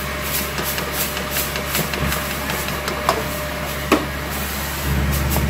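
Wooden spatula stirring and scraping minced meat around a metal pan, in repeated short strokes with a couple of sharper knocks, over a steady low mechanical hum that grows louder near the end.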